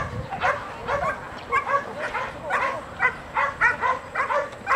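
Belgian Malinois whining and yipping in quick short calls, about three a second, each rising and falling in pitch: an excited, high-drive dog eager for the ball.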